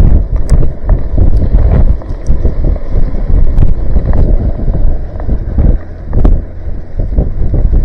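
Strong wind blasting across the microphone in loud, uneven gusts, with scattered short knocks.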